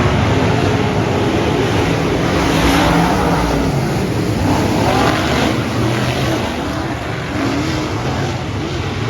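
Dirt-track race car engines running, several at once, their pitch rising and falling as they go around the track.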